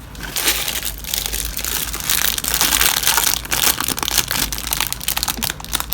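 Plastic packaging crinkling and rustling as it is handled, with many small crackles and ticks.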